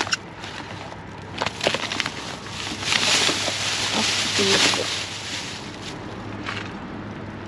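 Clear plastic bag rustling and crinkling as a hand shuffles boxes and packets inside it, with a few light knocks of cardboard boxes about a second and a half in and the loudest crinkling in the middle of the stretch.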